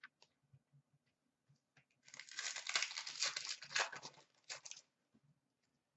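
Wrapper of an Upper Deck hockey card pack being torn open by hand, crinkling for nearly three seconds, beginning about two seconds in, after a few faint clicks.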